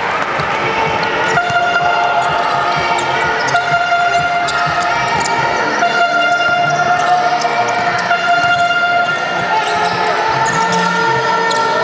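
A basketball being dribbled on a sports hall floor, with repeated echoing bounces and players' footsteps, and voices in the hall. Long steady tones come and go over it.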